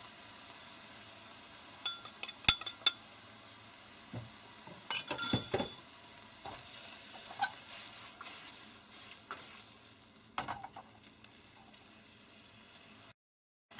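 Kitchen utensils and dishes clinking and knocking in scattered sharp strikes, loudest and quickest about two to three seconds in and again around five seconds, over a faint steady hiss.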